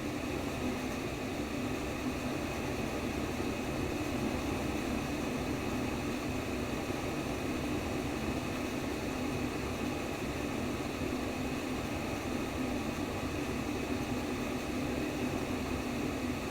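Steady white noise for baby sleep: an even, unchanging hiss, fullest in a low hum band, with no breaks or changes.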